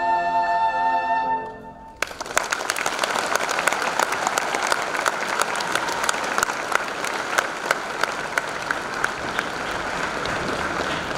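A choir's final held chord fades out, then an audience claps and applauds steadily from about two seconds in.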